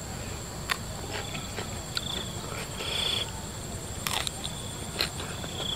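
Crickets and other insects calling: a steady high ringing, with three short buzzy trills. Over it, sharp crisp clicks of biting and chewing raw green vegetable stems, the loudest about four seconds in.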